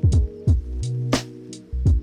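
Background electronic music with a steady beat: a sharp drum hit about every half second over sustained bass and synth notes.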